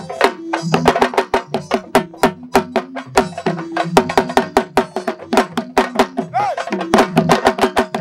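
Sabar drums playing a fast rhythm of dense, sharp strokes. A short wavering high note sounds about six and a half seconds in.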